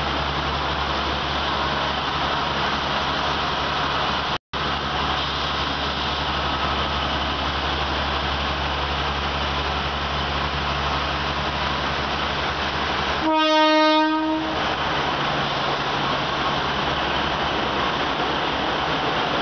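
Passenger train moving slowly past at close range, with a steady rumble and a low engine hum. About 13 seconds in, a train horn sounds once on a single pitch for just over a second. The sound drops out for a split second about four seconds in.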